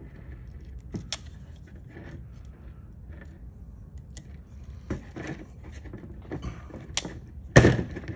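Crimping pliers squeezing a 5/16 ring terminal onto a black wire, with small metallic clicks and handling rustles of the tool and wire on a tabletop. A sharp knock near the end is the loudest sound.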